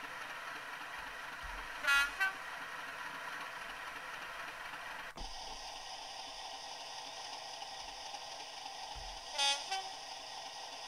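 Recorded Class 37 diesel locomotive sound from a South West Digital DCC sound decoder, played through a small model-railway speaker. The engine runs steadily, and two short two-note horn blasts come about two seconds in and again near the end. About five seconds in, the sound drops out for an instant and comes back through a different speaker with a thinner, brighter tone.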